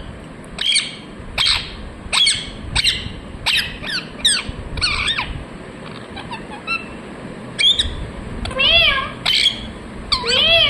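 A ringneck parrot (rose-ringed parakeet) calling: a run of short, sharp, high squawks about one to two a second, a brief lull, then a few longer, wavering calls near the end.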